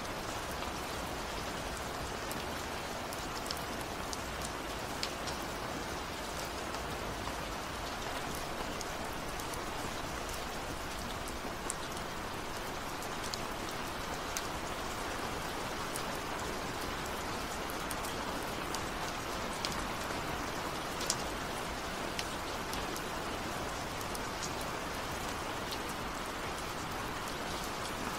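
Steady rain: an even hiss with many small, sharp drop ticks scattered through it.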